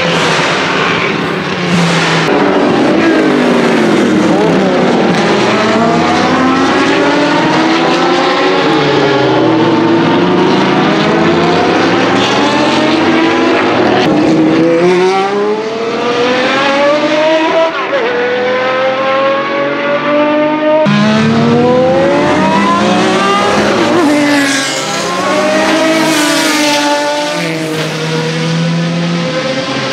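Jaguar XJR-8/XJR-9 Group C race cars' naturally aspirated 7.0-litre V12 engines at full throttle, several cars in turn. The engine notes climb in pitch, break at each gear change and climb again, and fall away as the cars pass by.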